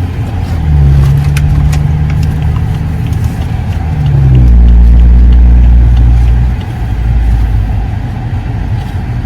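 BMW 535i's N55 turbocharged inline-six engine pulling away and accelerating, with road noise. The engine note drops in pitch a little after four seconds in, as at a gear change, then runs louder for about two seconds before easing off.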